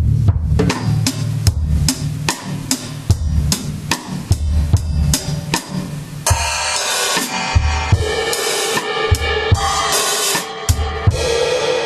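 Sonor drum kit being played during a sound check, heard through overhead and kick-drum mics off a mixing board. Bass drum and tom strokes in a steady beat, then crashing cymbals over the beat from about halfway.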